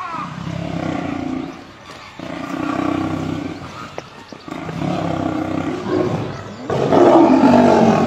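Lions growling and snarling in a fight: a run of drawn-out growls about a second each with short gaps, the last and loudest near the end.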